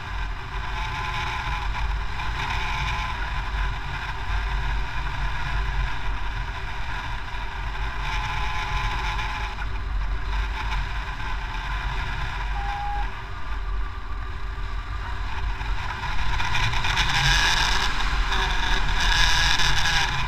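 Wind rushing over an action camera's microphone during hang glider flight, a steady low buffeting that gets louder about three-quarters of the way through.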